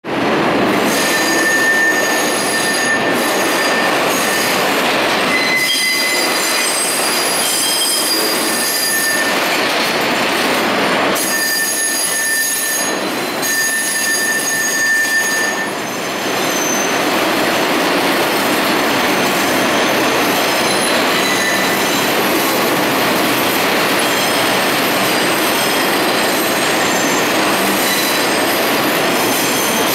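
R142 subway train's wheels squealing as it rounds a tight loop curve: flange squeal from wheels grinding against the rail on the sharp bend. Several high-pitched squeal tones come and go over a steady, loud rumble of the wheels on the track.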